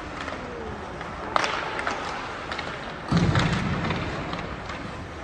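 Ice hockey play on the rink: a sharp crack about a second and a half in, then a heavy thud about three seconds in that rings on in the big empty hall.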